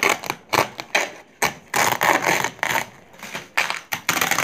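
Hands ripping open a plastic courier mailer bag: a rapid string of crinkles and tears, with a longer rip about two seconds in.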